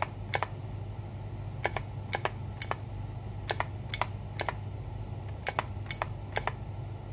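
Space bar of a Machenike K600 mechanical keyboard pressed repeatedly, about two presses a second in short runs of two or three, each a sharp clack.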